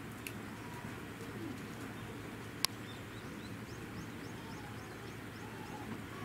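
A bird chirping a quick run of about ten short, high notes over a steady low background noise. A single sharp click sounds about two and a half seconds in.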